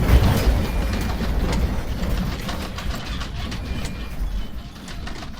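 Low rumbling with scattered rattles and clicks, fading steadily: shaking during an earthquake.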